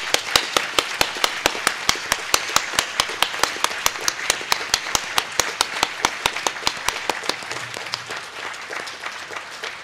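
Audience applauding, with one close pair of hands clapping sharply and steadily at about three claps a second. The applause thins out over the last few seconds.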